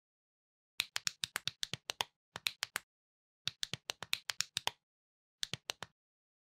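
Sharp clicks of small plastic building bricks snapping together, in four quick runs of roughly four to twelve clicks each, at up to about nine clicks a second, with dead silence between the runs.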